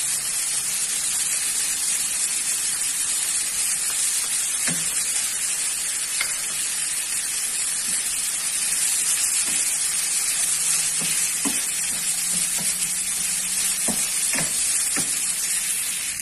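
Ground beef and pine nut filling sizzling steadily in a frying pan while a wooden spatula stirs it, knocking and scraping against the pan now and then.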